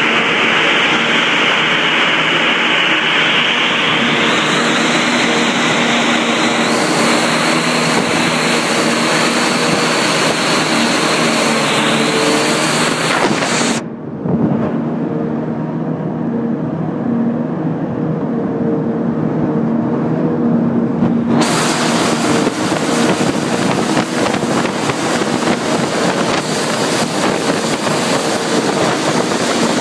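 Heavy farm machinery used in corn silage harvesting, running steadily with a constant engine hum under a dense mechanical noise. The higher part of the noise drops away for several seconds about halfway through, then comes back.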